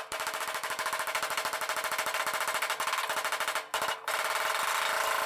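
Air hammer rapidly hammering on the steel rear body panel of a 1955 VW panel van from the inside, knocking out a dent. It runs in one fast, steady stream of blows, stopping briefly a little over halfway through and then starting again.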